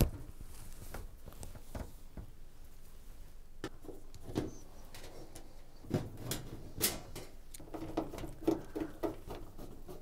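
Phillips screwdriver undoing the screws of a washing machine's metal back panel: a scattering of soft clicks and scrapes as the driver tip works the screws.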